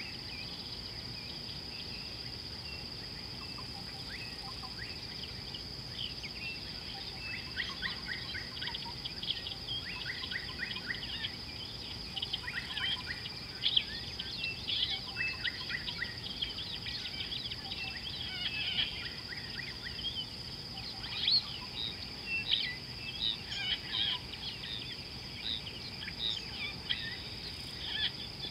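Several birds calling in short, quick repeated chirps and trills, busiest from a few seconds in to near the end, over a steady high-pitched insect drone.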